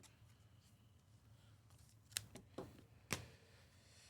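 Near silence broken by three brief, sharp clicks in the second half: trading cards being handled and set down.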